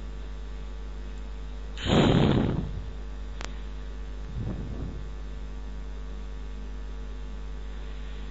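Steady electrical mains hum on the recording. About two seconds in, a short, louder rush of noise; a single click follows, then a fainter rush of noise about four and a half seconds in.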